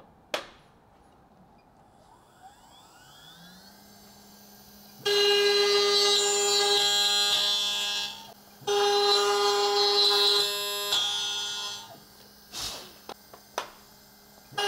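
A click, then a woodworking router spindle spinning up with a rising whine and settling into a steady hum. An end mill then cuts into the wood of a piano molding in two loud passes of about three seconds each, a shrill steady tone with many overtones, followed by a few light clicks near the end.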